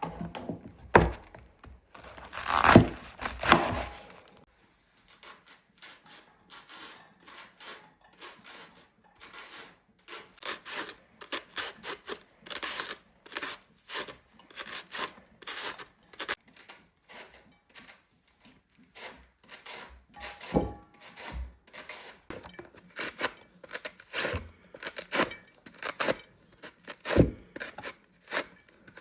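Rapid, repeated rasping strokes of something being rubbed or scraped, broken by a few louder knocks.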